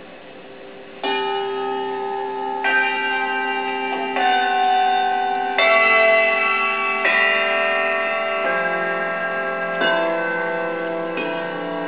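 Handbell choir ringing slow chords: after a faint first second, eight chords are struck about one every second and a half, each ringing on into the next. Heard through a television speaker.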